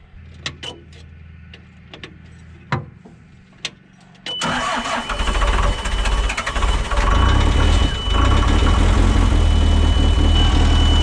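A few clicks, then about four seconds in an old, temperamental vehicle engine starts and runs with a heavy low rumble and a steady high whine alongside. The engine is cold and has to warm up, and it bogs down badly.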